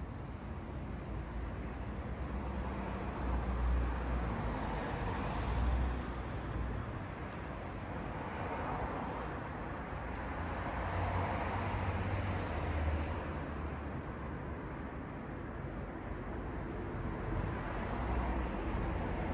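Road traffic going by: a steady hiss that swells and fades as vehicles pass, around four to six seconds in, again at about eleven to thirteen, and near the end.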